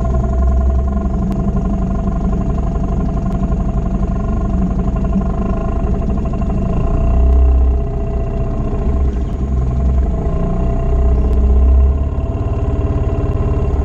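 Small boat outboard motor running steadily, getting louder for a second or two about halfway through and again near the end.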